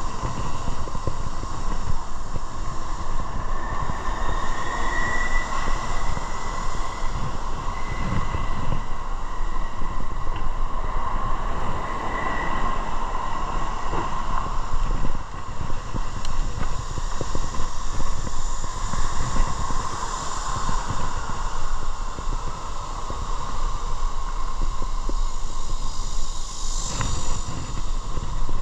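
Motorcycle on the move: a steady engine drone under continuous road and wind noise, with one short click near the end.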